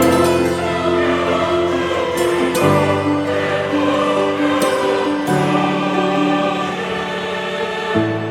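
Background music with choral voices holding sustained chords that change every few seconds.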